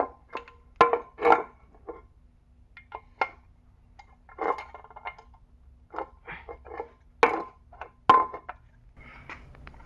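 Small metal parts and tools clinking and knocking as they are handled, in irregular single clicks with a few sharper, louder clinks.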